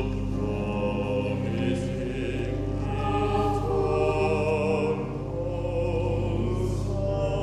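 Church choir of children's and adult voices singing a slow anthem, over steady low notes held on a Harrison and Harrison pipe organ.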